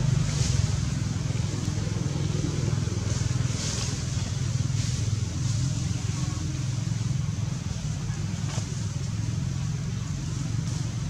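Steady low rumble of a motor vehicle engine running, with a few brief faint hisses now and then.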